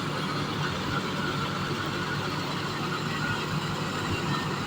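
Tractor-driven wheat thresher running steadily, the tractor engine and the threshing machine making one constant mechanical noise.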